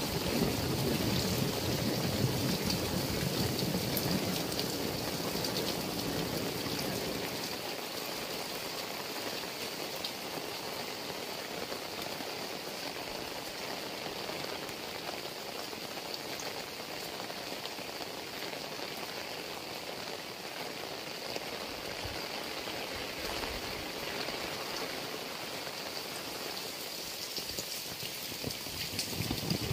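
Heavy rain falling steadily and hissing on wet ground and puddles. It is louder and fuller for the first several seconds, then settles to an even hiss.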